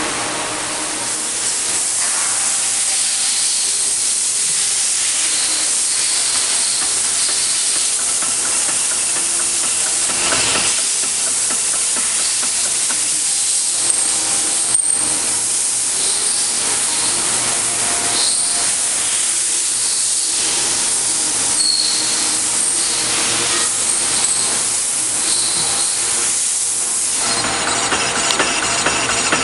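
TR-30NC thread rolling machine working, with a steady hiss over its running hum. The hiss cuts off near the end, leaving the machine's hum.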